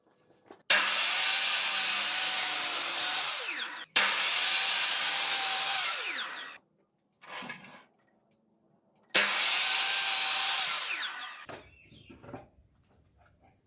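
A power tool run in three bursts of a few seconds each, each starting abruptly with a steady whine and winding down as the motor spins to a stop; a shorter, quieter sound of the same kind falls between the second and third bursts.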